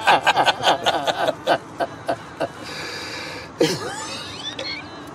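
A man laughing, a run of quick chuckles that fades out over about two and a half seconds.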